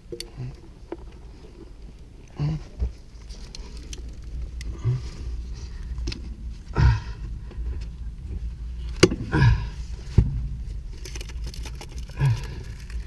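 Gloved hands fitting a shielded rubber coupling onto 4-inch ABS plastic sewer pipe: scattered knocks, scrapes and rubbing of rubber and plastic, with a few sharper knocks in the second half.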